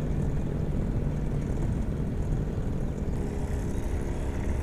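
Motorboat engine running steadily: a low rumble with a faint steady hum, a higher hum joining about three seconds in.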